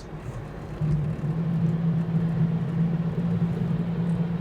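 Steady low drone inside a 1963 Chevrolet Corvair, stepping up in loudness about a second in and then holding steady.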